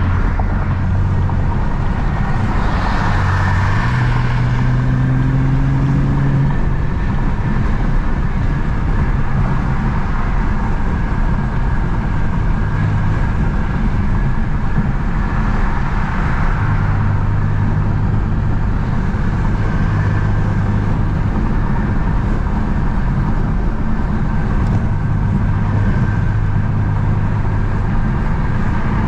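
BMW F80 M3's twin-turbo inline-six engine and exhaust, fitted with a single mid pipe and the stock exhaust, heard from inside the cabin while cruising at highway speed: a steady low hum over tyre and road noise. The engine note steps up in pitch a few seconds in and shifts a little several times after that. It stays quiet, with virtually no drone.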